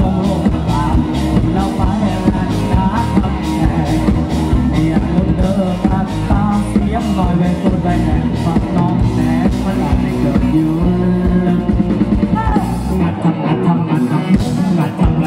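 Live rock band playing through a PA: a male singer over electric guitar, bass and a drum kit with a steady beat. About thirteen seconds in, the bass and kick drum drop out for a break.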